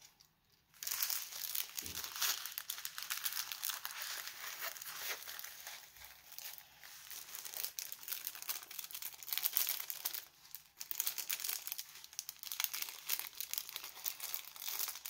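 Clear plastic bag crinkling and crackling as it is handled along with a rolled diamond-painting canvas. The dense crackle starts about a second in and has a short break about two-thirds of the way through.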